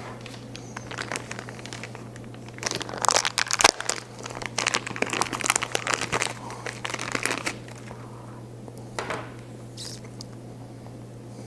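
Crinkling and rustling of handled material with many small clicks, coming in clusters through the middle and a short burst later, over a steady low hum.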